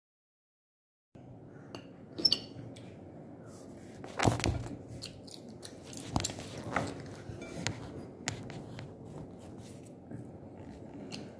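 Close-up eating sounds: chewing and a fork clicking on a plate, with a few sharper knocks, over a low steady hiss. The sound starts about a second in.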